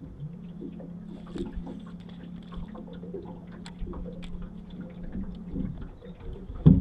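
Bow-mounted electric trolling motor humming steadily: it spins up just after the start, cuts out briefly near the end and comes back slightly higher. Light clicks and taps throughout, and one loud knock just before the end.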